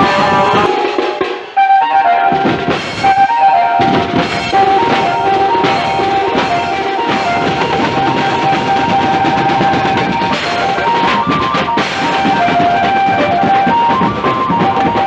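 Procession band music: drums and cymbals beating under a held, stepping lead melody, with a brief drop in level about a second and a half in.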